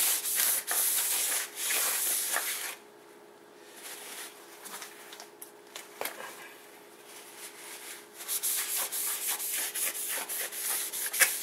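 A solvent-dampened cloth rubbing over the face of a new brake rotor, wiping off its rust-inhibitor coating. There is scratchy rubbing for about two and a half seconds, a pause with a few light taps, then rubbing again from about eight seconds in.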